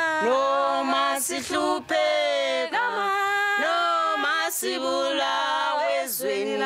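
A small group of women singing together unaccompanied in Xhosa, in held notes with short breaks between phrases.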